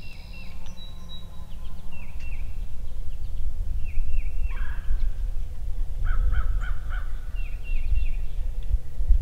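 Wild turkey gobbler gobbling: a quick rattling call about six seconds in, with a shorter call a little before it. A small songbird repeats short falling chirps throughout, over a low rumble.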